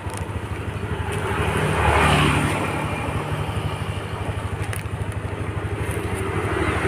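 Steady low motor engine running, with a vehicle passing on the road about two seconds in, its sound swelling and fading.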